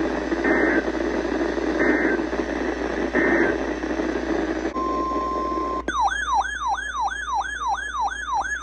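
Radio static carrying three short bursts of EAS digital data, the end-of-message codes that close the flash flood warning. Then a steady electronic tone sounds for about a second. It is followed by an electronic alert alarm whose pitch sweeps downward over and over, about three times a second.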